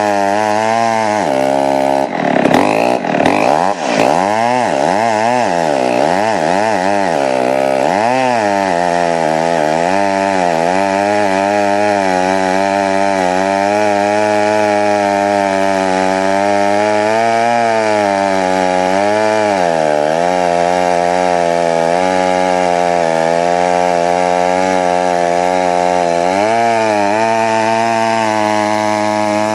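Wright chainsaw running at full throttle while cutting through a large log. Its engine speed swings up and down sharply for several seconds early on, then holds fairly steady, with a few brief dips as the bar loads in the wood.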